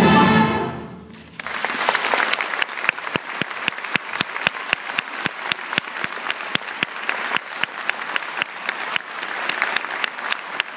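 A final accented chord from a string orchestra and accordion, cut off sharply and ringing away within about a second. An audience then applauds steadily.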